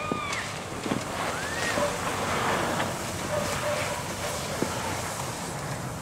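Steady rushing wind noise on the microphone in a snowstorm, a little louder a couple of seconds in. A couple of brief high gliding sounds come in the first two seconds.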